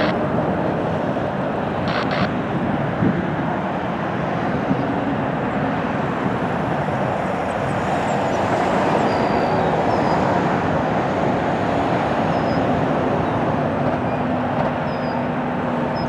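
Jet airliner's engines at takeoff power as it departs, a steady noise that swells slightly midway through. A short double click comes about two seconds in.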